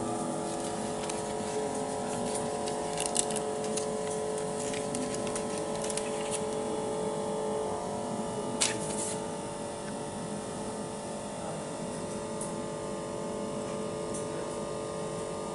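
Steady hum from a pulse-heat FPC flex press machine with its vacuum suction running, heard as several steady tones. Light clicks and taps of parts being handled sound over it, the sharpest about eight and a half seconds in. The hum is slightly quieter after about nine and a half seconds.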